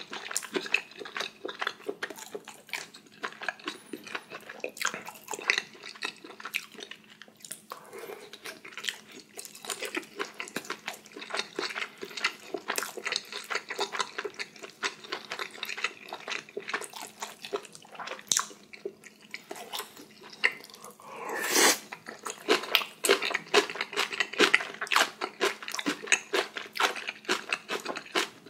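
Close-miked eating of spicy ramen and dumplings: a continuous run of wet chewing clicks and mouth sounds, with one louder slurp a little past two-thirds of the way through.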